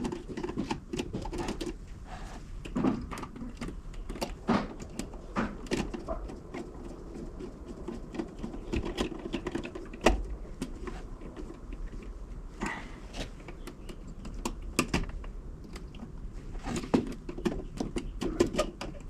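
Irregular light clicks and taps of small hand tools and wires being handled, as wires are stripped and fastened into terminals.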